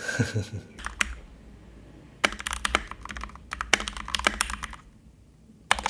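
Keychron K2 mechanical keyboard with red linear switches being typed on, in short bursts of rapid keystrokes separated by brief pauses.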